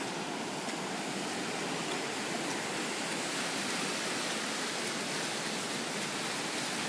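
Bear Creek in flood, overflowing its banks: a steady, unbroken rush of fast-moving floodwater.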